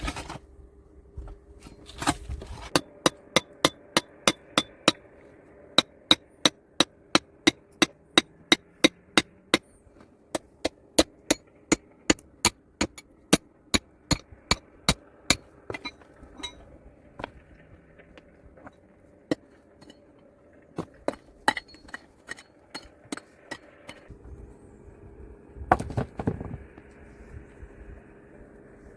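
Stone being struck over and over with a hard tool: a fast, steady run of sharp, ringing clinks at about three blows a second. It thins to scattered single blows, with a short cluster of blows near the end.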